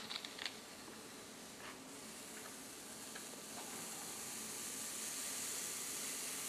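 Paper being rubbed down by hand onto an inked woodblock to take the print: a few light paper clicks at the start, then a steady hissing rub that slowly grows louder.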